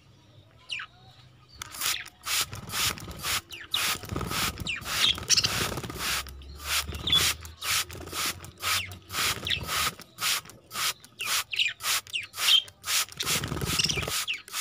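A hand spray bottle squirting water over budgerigars in quick repeated pumps, about three a second, beginning about a second and a half in, as a bath for the birds. The budgies chirp in short whistles between the squirts.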